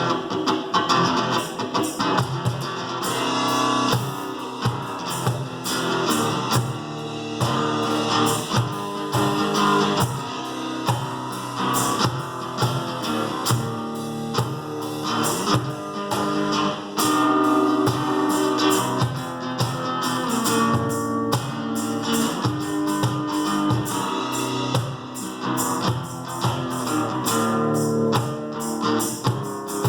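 Guitar played live in an instrumental passage, with fast strummed chords and picked notes.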